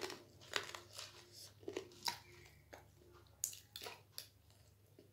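Close-up chewing of chatpate, a crunchy spiced puffed-rice snack: about nine irregular crisp crunches, fading near the end.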